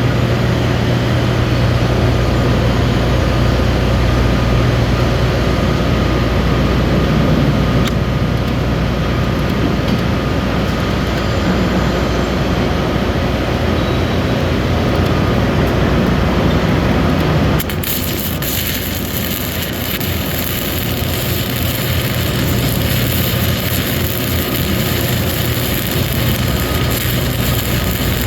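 Structural flux-cored arc welding with Lincoln NR-233 self-shielded wire: an even loud hiss over a steady low machine hum. The sound shifts abruptly about eighteen seconds in, and the hiss turns brighter.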